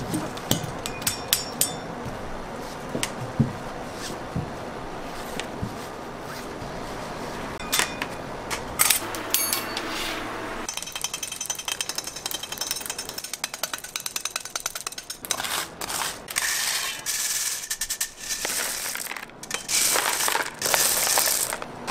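Hard candy being cut and handled: sharp clicks and taps of a blade chopping a candy rope on a steel table, a quick run of many clicks, then in the second half the rattle of small hard-candy pieces tumbling against each other.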